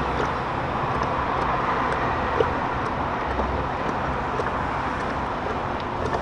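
Steady motor-vehicle noise: a low, even engine hum under a broad hiss, with a few faint clicks.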